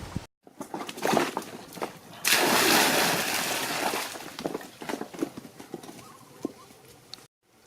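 Water splashing and sloshing, with scattered light knocks; a louder rush of splashing water starts about two seconds in and fades over the next two seconds. The sound cuts out briefly just after the start and again near the end.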